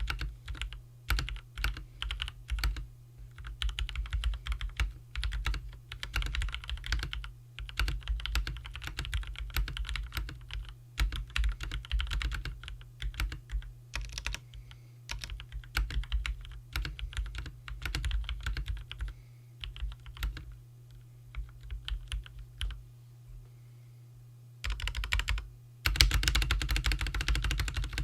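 Typing on a Keychron C1 mechanical keyboard with Akko cherry-profile keycaps: rapid keystroke clatter in irregular bursts with short pauses. It eases into a lull of a few seconds past the middle, then a dense flurry of keystrokes near the end, over a steady low hum.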